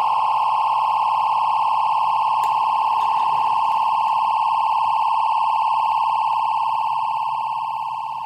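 A loud, steady electronic tone, one high pitch held for several seconds with fainter overtones, fading away near the end.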